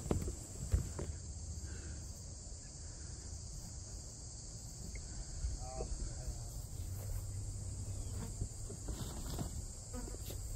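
Steady high-pitched chorus of insects, unbroken throughout, over a low rumble.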